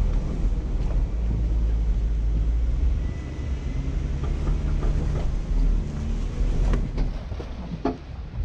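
A 4x4's engine running with a steady low rumble as the vehicle crawls slowly over a rocky trail. Several sharp knocks and crunches from the tyres and body on the rocks come in the last couple of seconds.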